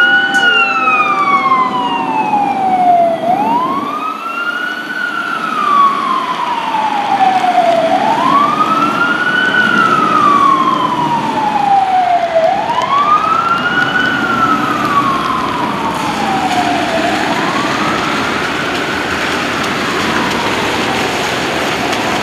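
Fire truck siren wailing as the truck moves off: the pitch rises quickly and falls away more slowly, about every four and a half seconds, growing fainter in the last few cycles as the truck pulls away. A steady hiss of wet-road noise lies under it.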